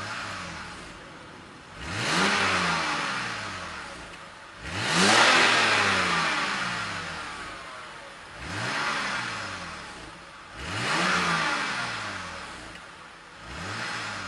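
2007 BMW 328i's N52 3.0-litre straight-six revved through its stock muffler. There are about six short blips from idle, each rising quickly and then falling back to idle, and the biggest comes about five seconds in.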